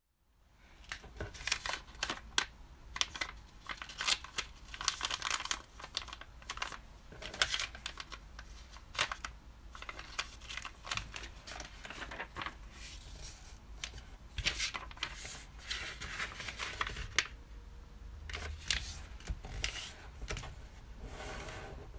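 Origami colour paper rustling and crinkling as hands handle, fold and crease it, in irregular crisp strokes.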